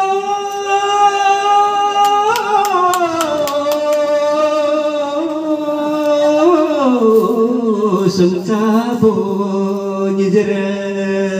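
A man singing long, drawn-out notes into a microphone, a single voice whose melody steps down in pitch through the phrase.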